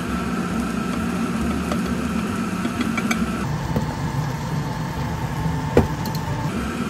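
A steady machine hum from a kitchen appliance, with light clicks of wooden chopsticks against a tamagoyaki pan as the omelette egg is worked, and one sharper tap near the end.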